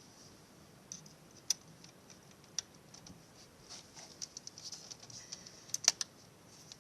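Irregular light clicks and taps of a 10mm wrench working a motorcycle battery terminal bolt, with a louder cluster of clicks near the end.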